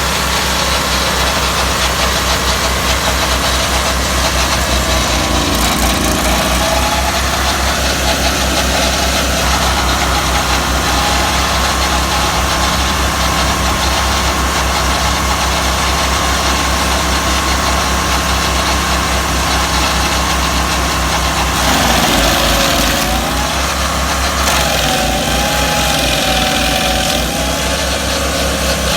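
The engines of a twin-engine stump grinder, an old 35-horsepower machine fitted with a second engine, running together at a steady, loud drone. From about twenty-two seconds in, a whine wavers up and down in pitch over the engine sound.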